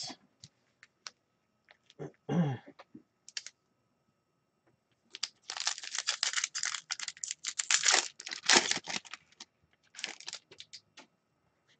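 Foil hockey-card pack wrapper crinkling and tearing as it is opened by hand, a dense crackly run from about five to nine seconds in, then a few smaller crinkles.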